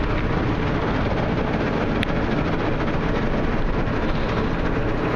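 Ryko SoftGloss XS 2.0 car wash's spinning cloth brushes buffing the doors amid water spray, a steady rush heard from inside the car's cabin, with one short click about two seconds in.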